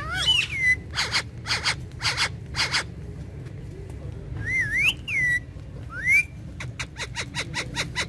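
Indian ringneck (rose-ringed) parakeets calling: a swooping call at the start, four short harsh squawks about half a second apart, then whistled notes that swoop up and down. Near the end comes a fast ticking chatter of about seven clicks a second.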